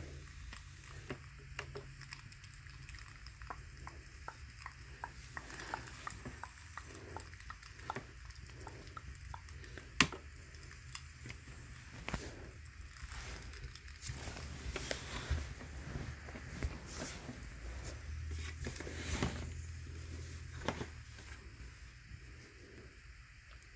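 Scattered light clicks and rustling handling noise over a low hum, with one sharp click about ten seconds in.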